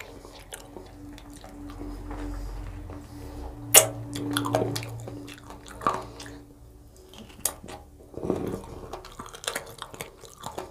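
Close-miked mouth sounds of a person chewing and biting chicken curry and rice, with scattered wet clicks and smacks. A sharp click about four seconds in is the loudest.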